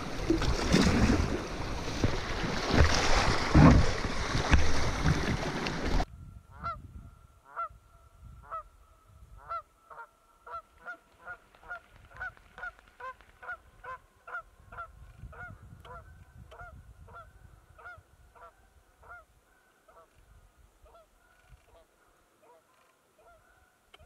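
Rapids rushing and splashing against a canoe, cut off suddenly about six seconds in. Then a Canada goose honks over and over, about two calls a second, fading toward the end.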